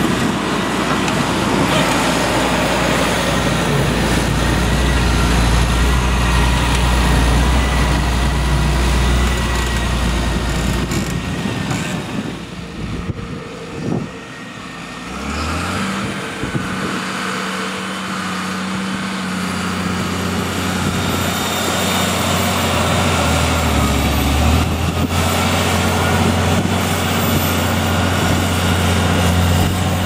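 Fendt 936 Vario tractor's six-cylinder diesel engine working hard under load, pulling a six-furrow Lemken Juwel 8 reversible mounted plough, with the rush of soil pouring off the plough bodies. Midway the sound dips, then the engine note rises and holds steady, briefly sagging and recovering later on.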